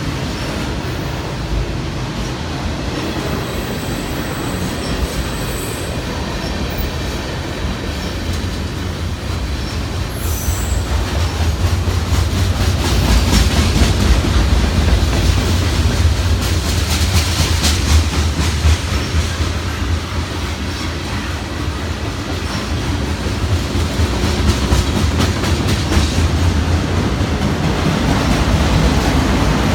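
Long CN freight train passing at close range: steel wheels clacking rhythmically over the rail with a steady low rumble. There are a few brief high-pitched wheel squeals, and the sound swells louder about a third of the way in and again near the end.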